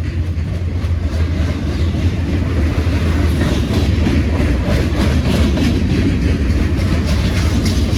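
Maintenance-of-way gondola cars of a freight train rolling past: a steady low rumble with the wheels clicking over the rail joints.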